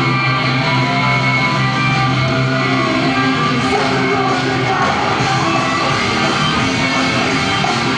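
Live rock band performance: singing over electric guitars and drums, at a steady full level.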